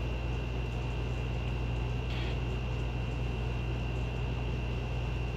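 Steady background room noise: a constant low hum with a thin, unchanging high whine above it and an even hiss between.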